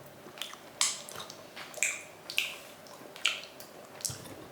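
Wet chewing of raw chicken: a series of sharp, wet mouth smacks, about one a second.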